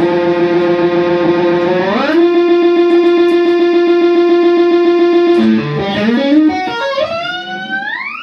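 Electric guitar holding long sustained notes that slide in pitch: one tone climbs to a higher held note about two seconds in, a choppier low passage follows around five and a half seconds, and a long upward glide rises near the end.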